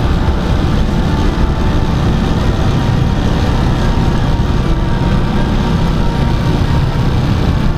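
Small motorcycle's engine running steadily at low speed, heard from the rider's seat as a continuous low rumble.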